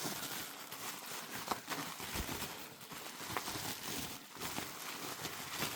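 Rustling of packaging and a few light taps as a boxed collector doll is handled and lifted out of its box.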